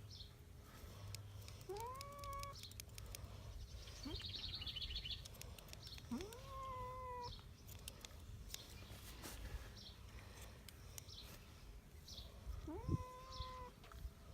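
Domestic cat meowing three times, each a long drawn-out call that rises and then holds its pitch, while it is being held for a haircut.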